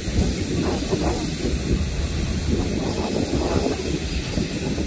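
The jet engines of an Airbus A320 taxiing, a steady high whine over hiss and a low rumble.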